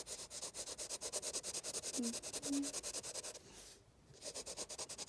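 Coloring in a drawing on paper with fast back-and-forth scribbling strokes, about eight a second, with a short break a little past the middle.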